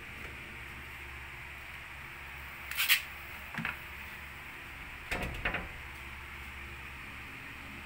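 A few short knocks and clicks of hands and phone handling against a glass mirror and shelf, the loudest just before three seconds in and a quick double one past the five-second mark, over a steady low hiss and hum.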